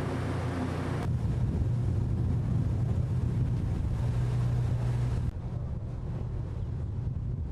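Boat engine running steadily with a low hum, wind buffeting the microphone. The sound changes abruptly about a second in and again about five seconds in.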